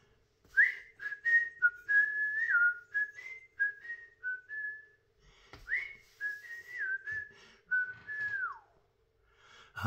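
A man whistling a tune by mouth in two phrases of short notes, the second phrase ending in a falling slide.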